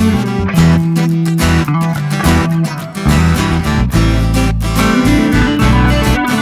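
Background music led by guitar, with a strong bass line.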